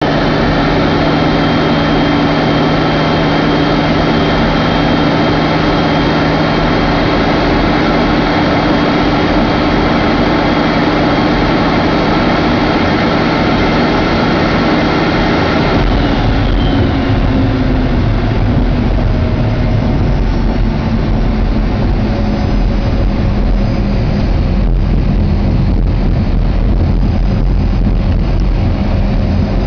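Alpha Jet's twin Larzac turbofan engines running with a steady whine. About halfway through, the whine falls in pitch and a heavier low rumble takes over: the jet touching down and rolling out on the runway.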